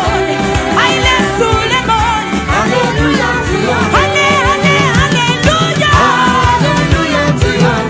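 Gospel worship music with a steady drum beat under a wavering sung melody.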